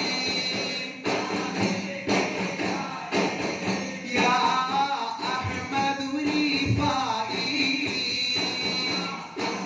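Arabana muttu: a group of performers beating arabanas, one-sided wooden frame drums with metal jingles on the rim, in a steady unison rhythm while singing a chorus.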